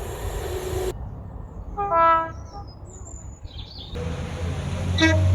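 Short train horn toots: a brief blast about two seconds in, then, over a low locomotive rumble, another very short toot near the end. A bird chirps once in between.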